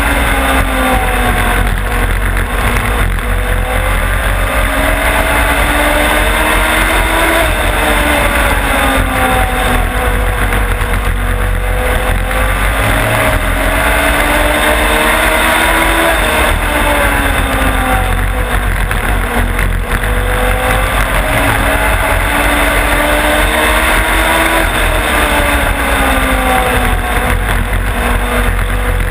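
Legends race car engine at racing speed, heard from the car itself. The revs climb down each straight and drop off into each turn, over and over, over a constant low rumble of wind and vibration on the mount.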